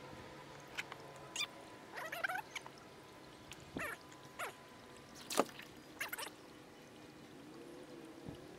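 Short, irregular splashes and trickling water from a hooked catfish stirring in a landing net held at the water's surface against a kayak's hull.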